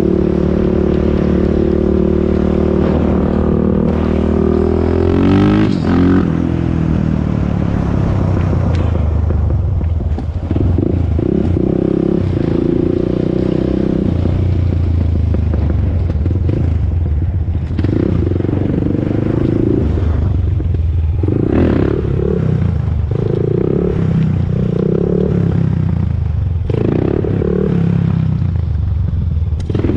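Honda TRX400EX ATV's single-cylinder four-stroke engine running under way, its note rising and falling with the throttle. In the second half it gives a run of short, repeated throttle bursts about a second apart.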